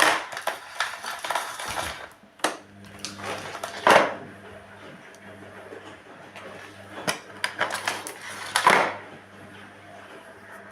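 Electrolux Ultrasilencer vacuum cleaner's power cord rewinding into the body, a rattling whir lasting about two seconds. After it come scattered plastic clicks and knocks over a faint low hum.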